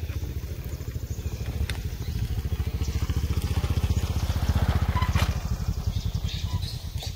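An engine running with a fast, even low-pitched pulse, growing louder until about five seconds in and then fading away, with a few sharp clicks over it.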